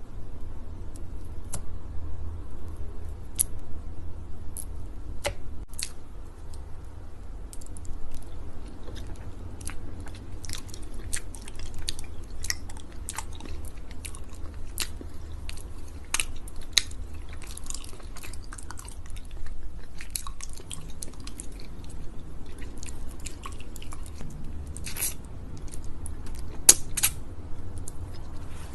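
Close-miked chewing with a dense run of sharp, sticky, wet mouth clicks and crackles, over a steady low hum.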